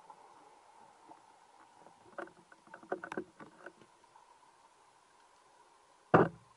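Underwater sound picked up by a speargun-mounted camera: a faint steady hum, a scatter of small clicks and knocks about two to four seconds in, and one loud sharp knock near the end.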